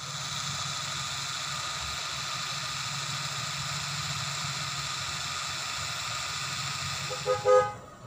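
A car's engine idling with a steady low hum and hiss; a short horn toot sounds near the end.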